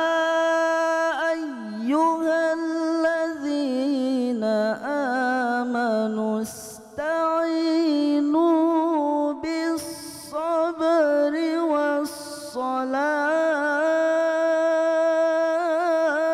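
A young man's solo Quran recitation (tilawa) in the melodic tajweed style, sung into a handheld microphone: long held notes with wavering ornamented turns, broken by short breath pauses about six, ten and twelve seconds in.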